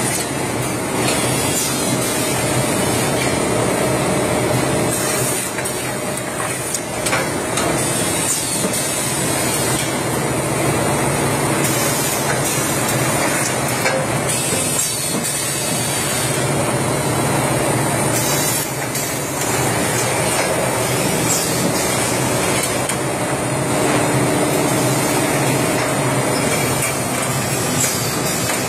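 Automatic carton folder gluer line with its conveyors and strapper running: a loud, steady mechanical din with a constant high hiss and occasional short knocks.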